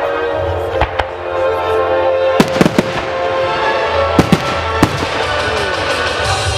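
Professional display fireworks bursting, about half a dozen sharp bangs spread through, over a music soundtrack of held notes.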